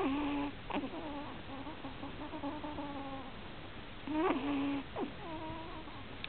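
Pomeranian puppy snoring in deep sleep, a high-pitched whistling tone on each breath. Two long breaths, one at the start and one about four seconds in, each opening with a sharp squeak.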